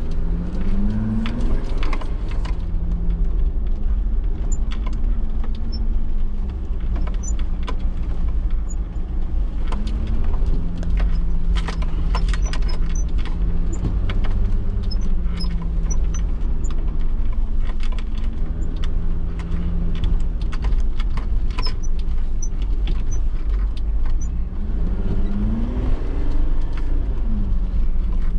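Mercedes G-Class off-roader driving slowly on a rough dirt forest track. The engine note rises and falls with the throttle over a steady low rumble. Scattered clicks and rattles run over it.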